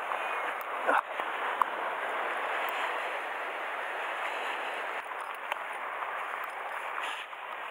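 Steady wash of sea surf breaking against a rocky shore, with a couple of sharp knocks about a second in.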